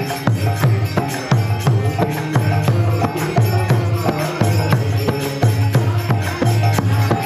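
Kirtan music: a harmonium holding steady chords over a hand drum's low, slightly bending bass strokes in a quick steady beat, with jingling hand cymbals or small percussion on the beat.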